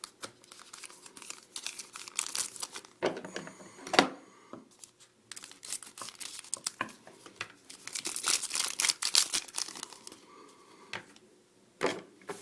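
Plastic trading card pack wrappers being torn open and crinkled by hand, with irregular crackles, a sharp snap about 4 seconds in and a dense stretch of crinkling near the end.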